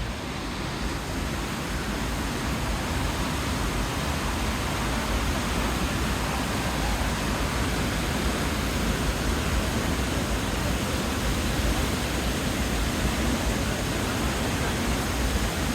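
Skógafoss, a wide waterfall with a 60 m drop, rushing as a steady, loud, unbroken roar of falling water.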